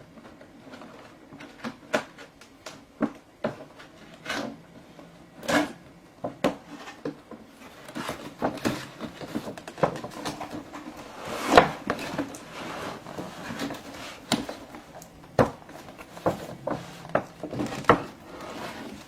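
A toy's cardboard box and its plastic packaging being handled and opened: irregular knocks, clicks and rustling, with the loudest knock about halfway through.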